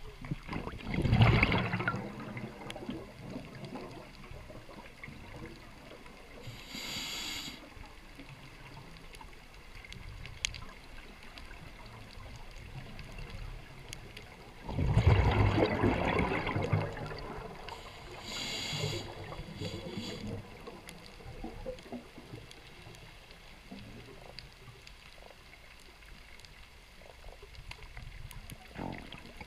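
Scuba regulator breathing heard underwater: loud bursts of bubbling exhaust about a second in and again near the middle, and a short high hiss of inhalation through the demand valve twice, over a low steady underwater hiss.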